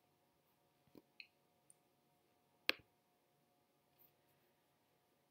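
Near silence with a few faint clicks, the loudest a single sharp click a little past halfway through, as the presentation slide is advanced on the computer.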